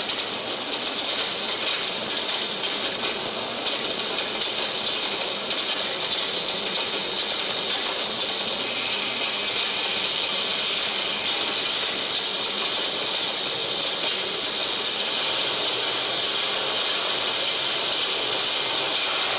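Harsh noise music played live: a dense, unbroken wall of hissing noise at a steady loudness, heaviest in the upper range. A high steady whistle sits in the noise at the start and thins out after a few seconds.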